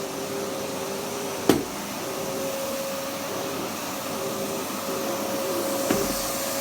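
Vacuum cleaner running steadily with a constant motor whine. There is one sharp knock about a second and a half in, and a smaller click near the end.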